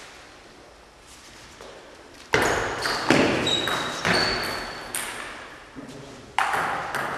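Table tennis rally: the ball clicks sharply off bats and table, each hit ringing with a long echo in the sports hall. After about two quiet seconds come four or five quick hits, then one more near the end.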